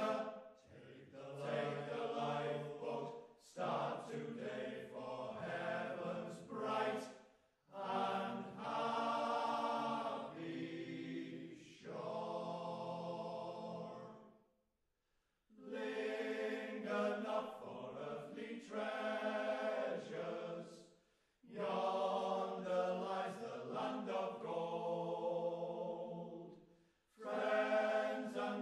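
Male fishermen's choir singing in sustained phrases, with short breaks between phrases and a full pause of about a second roughly halfway through.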